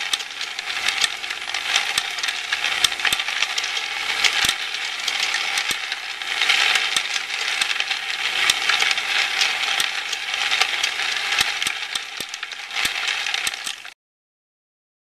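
Small stamped sheet-metal parts clattering in a stamping press line: a dense run of light metallic clinks and rattles that swells in waves, then cuts off suddenly near the end.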